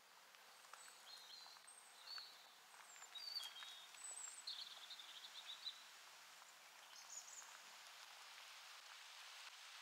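Small songbirds calling: short high chirps and a brief trill over the first six seconds, one more call a little after seven seconds. Underneath, a faint steady hiss of wind in the trees that swells slightly toward the end.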